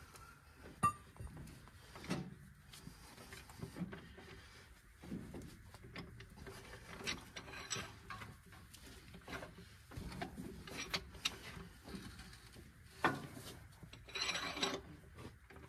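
Scattered clinks, knocks and scrapes of a socket and hand tools being worked on the wheel-clamp bolts of a tractor's rear wheel hub, with a longer scraping rattle near the end.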